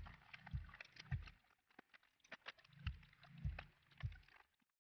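Faint, irregular clicks and low thuds of a screwdriver and hands working on a scooter's front panels while its old wiring harness is taken out.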